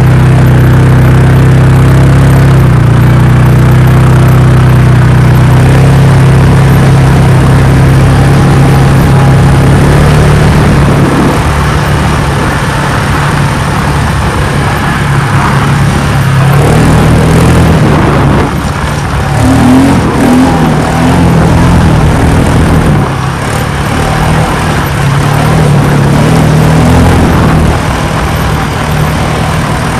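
Quad bike (ATV) engine running under way across sand, loud; its pitch holds steady for about the first ten seconds, then rises and falls as the throttle is opened and eased.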